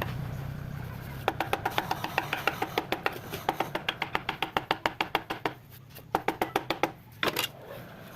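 Rapid, even tapping, about five light strikes a second. It comes in a long run, a pause, then a shorter run, and stops after a last couple of taps near the end.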